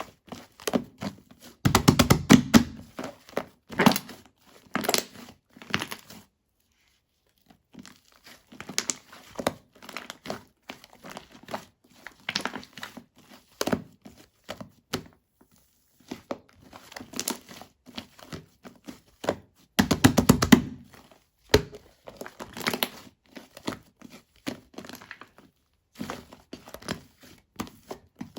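Shaving-foam slime being squeezed and pressed by hand, with sticky crackling, small pops and squishing in irregular bursts. The densest bursts come about two seconds in and again about twenty seconds in, and there is a brief pause about six seconds in.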